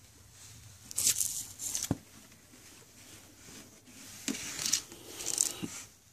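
Handling noise from a soft fabric holster and a Sig Sauer P238 pistol being slid into it: bursts of rustling and scraping about a second in and again around four to five seconds in, with a light knock near two seconds.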